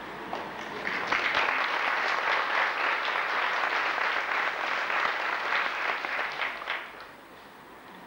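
Audience applauding: the clapping swells about a second in, holds steady, and dies away near the end.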